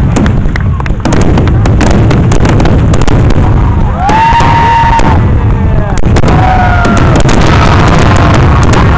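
Fireworks finale: a rapid run of aerial shell bursts and crackling over a constant low rumble. From about halfway through, spectators start whooping and shouting over the bangs.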